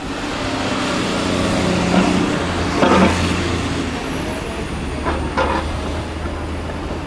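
A TTC Bombardier Flexity Outlook streetcar passing close by on the curve: a steady rolling rumble with a hum that swells in the first half, and sharp clanks about two, three and five seconds in as the wheels cross the track.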